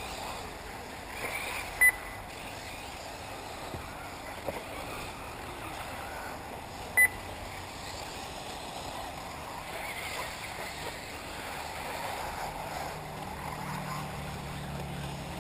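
Two short, loud electronic beeps about five seconds apart, typical of an RC race lap-timing system registering a car crossing the line, over a steady outdoor hiss from the track.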